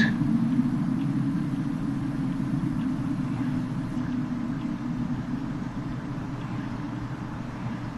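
Steady low rumbling drone, slowly fading.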